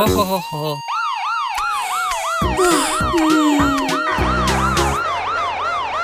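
Cartoon police car siren wailing in a fast rise and fall, about three times a second, starting about a second in.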